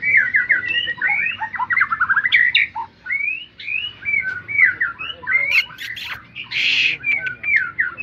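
White-rumped shama (murai batu) singing a continuous, varied song of quick whistled phrases and rapid trills, with a few sharp clicks and a brief harsh, noisy note about two-thirds of the way through.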